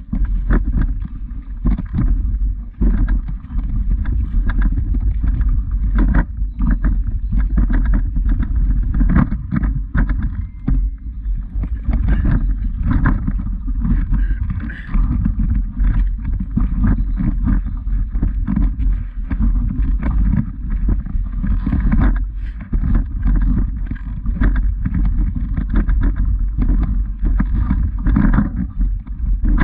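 Loud low rumbling noise on the microphone of a camera carried up a hill path, broken by frequent irregular knocks and crunches of footsteps on loose stones.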